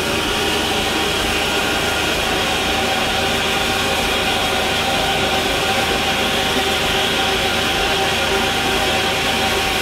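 LNER A4 Pacific steam locomotive Sir Nigel Gresley standing with steam escaping: a loud, steady hiss with a faint steady hum of tones beneath it.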